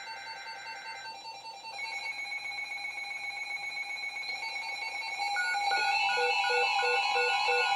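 Several NOAA weather alert radios sounding their alarms together after receiving a new warning: overlapping steady tones and beeps. More radios join about two and five seconds in, one of them beeping two to three times a second.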